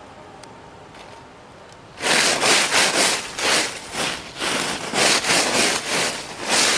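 Rhythmic rustling and crunching of dry forest-floor litter, about two scrapes a second, starting about two seconds in and loud.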